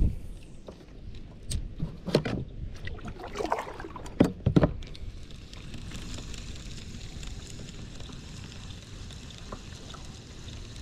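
Kayak paddling: several sudden paddle strokes, knocks and splashes in the first few seconds, then a steady rushing hiss for the rest.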